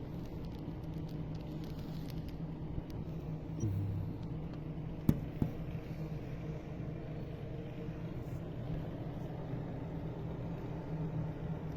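An engine running steadily with a low rumble, with a sharp click about five seconds in.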